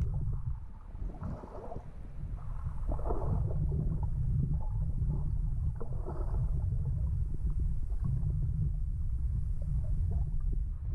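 Muffled water sound picked up by a camera held underwater in a hot spring pool: a steady low rumble with water swishing a few times.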